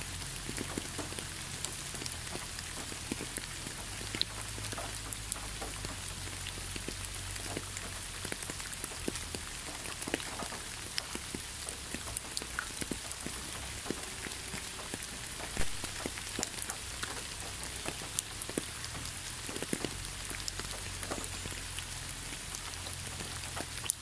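Steady rainfall: an even hiss with many separate drops ticking through it.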